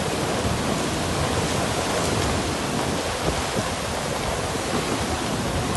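Heavy rain pouring down in a strong wind, a steady dense hiss.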